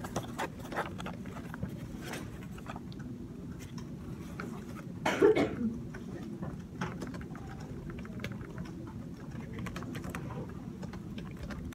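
Hands handling paper on a desk, making scattered light clicks and rustles over a steady room hum, with one louder short burst about five seconds in.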